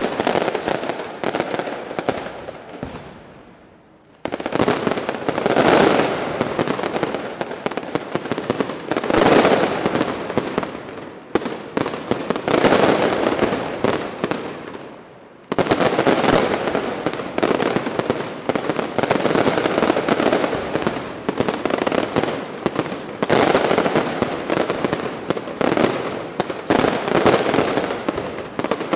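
Pirotecnia Alto Palancia fireworks display: a dense, continuous volley of crackles and bangs. It dies away twice and starts again abruptly, about four seconds in and again about halfway through.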